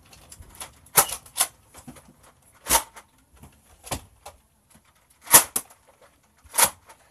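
Spring-powered foam-dart blasters firing in a toy gunfight: about seven sharp pops and clacks at irregular intervals, roughly one a second.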